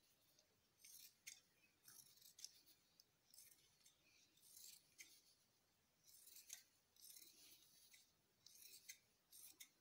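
Scissors cutting cotton fabric in a series of faint short snips, about one a second, trimming the excess cloth from a kurta collar band.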